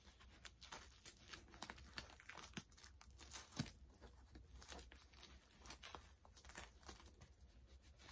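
Faint, irregular crinkling and rustling of plastic packaging and cloth as a doll is handled and its dress adjusted, with one sharper click about three and a half seconds in.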